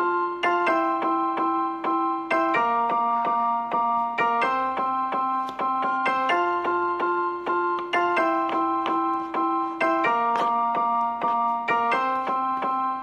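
Background keyboard music with a piano sound: a steady melody over held low notes that change every couple of seconds.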